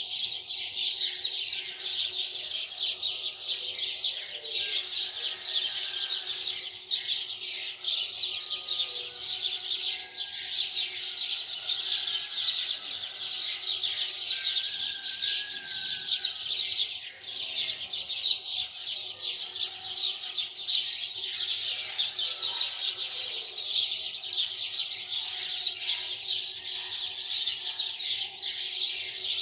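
A dense, continuous chorus of many small birds chirping rapidly, with a faint steady hum underneath.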